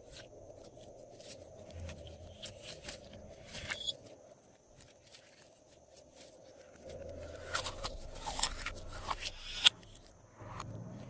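Glossy slime being squished and stretched by hand, giving irregular sticky clicks and crackling pops. The pops come more thickly and louder about two-thirds of the way through, ending with one sharp snap.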